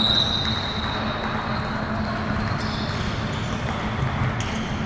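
A ball bouncing and players moving on an indoor court, over a steady low hum.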